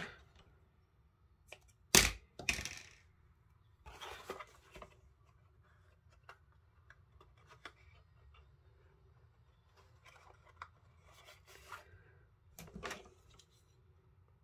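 Red-liner double-sided craft tape being torn and its backing peeled off while a card gift bag is handled: a sharp click about two seconds in, then soft, scattered rustles and light ticks of paper and card.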